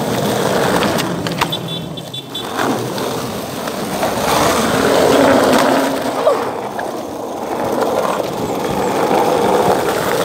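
Skateboard wheels rolling on concrete, a continuous rumble that swells and fades. A few sharp clacks of the board come in the first few seconds.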